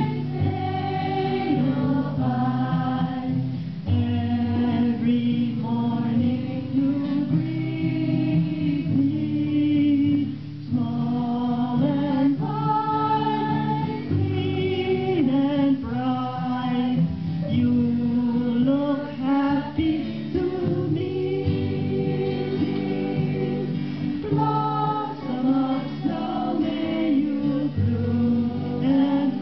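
A group of voices singing a song together, holding long notes one after another without a break.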